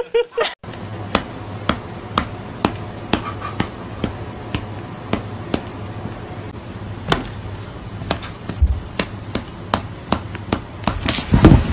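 A series of sharp taps or knocks, roughly two a second, over a steady low hum, with a louder, noisier burst near the end.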